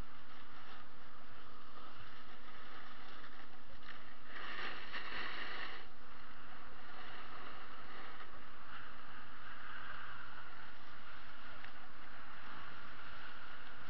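Snowboard sliding over packed, tracked snow: a steady scraping hiss, with a louder scrape of the board's edge about four and a half seconds in that lasts a second or so.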